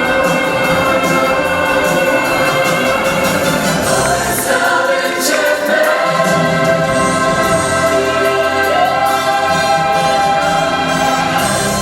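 Stage-show song: a choir singing long held notes over musical backing, stepping up in pitch twice.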